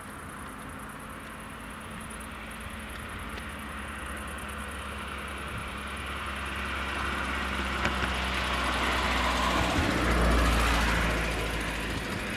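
An approaching vehicle: a deep engine rumble and rolling noise grow steadily louder, peak about ten seconds in, then ease off a little.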